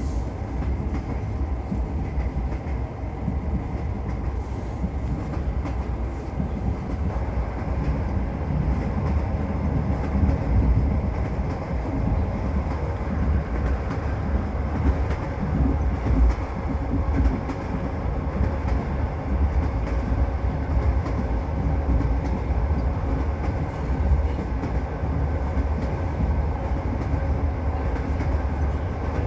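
A passenger train running along the line: a steady rumble of wheels on the rails, with the clickety-clack of the wheels passing over rail joints.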